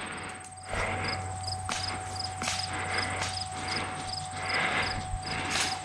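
Crickets chirping, about two chirps a second, over a faint steady high insect trill, with a soft rustle coming about once a second.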